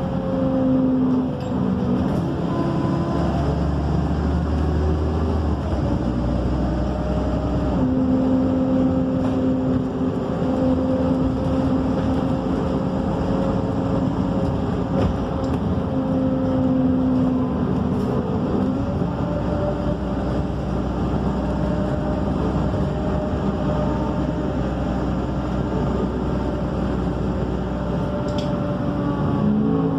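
Interior sound of a MAN Lion's City A37 city bus under way: the engine and drivetrain running with a steady rumble and whining tones that shift in pitch a few times as the bus changes speed and gear.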